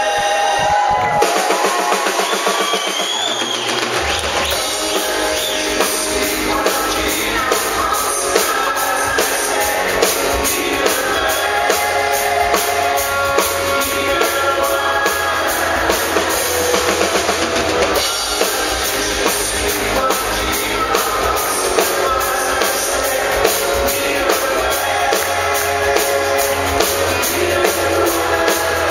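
Live rock band playing with drum kit, bass and electric guitar; the drums and bass come in about four seconds in and then keep a steady beat. A man and a woman sing a duet over it.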